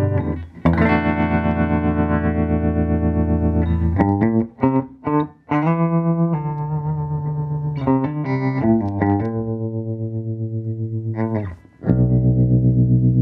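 Electric guitar chords played through a late-1960s Fender Princeton tube amp with the tremolo at full intensity, the volume pulsing evenly several times a second. Held chords alternate with quick chord changes, with short breaks between phrases. The tremolo depth still sounds modest: it could be a little more.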